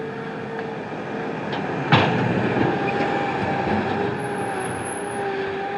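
Heavy machinery running with a steady rumble, one sharp loud clank about two seconds in, and a steady whine after it.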